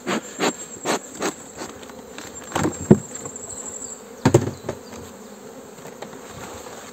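Honeybees humming around an opened hive, with a series of sharp wooden knocks and clunks as the hive roof is lifted off and set down and the wooden inner cover is handled: several knocks in the first second and a half, a sharp one near three seconds, and a cluster a little after four seconds.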